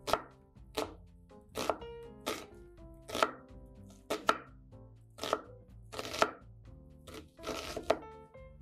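Kitchen knife slicing through a block of ham onto a wooden cutting board: about ten cuts a little under a second apart, each a short slicing swish ending in a knock on the board, one drawn out longer near the end.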